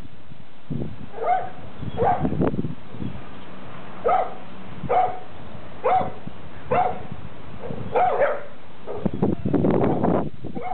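Dogs barking at each other: about eight short barks, roughly one a second, followed near the end by a louder, rough noisy stretch.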